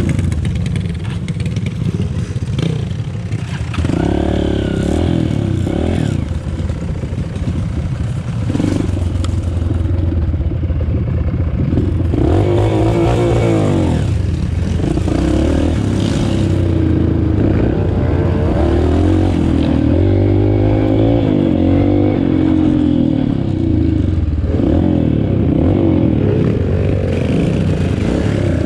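Motorcycle engine running under load on a trail ride, revving up and down repeatedly as the pitch rises and falls.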